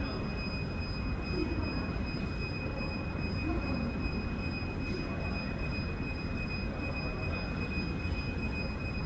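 Steady low rumble of a vehicle or aircraft interior, with a constant high-pitched whine running over it.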